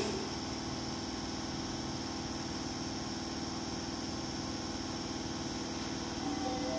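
Steady hum of a Keisei commuter train standing at an underground platform with its doors open. A melody begins near the end.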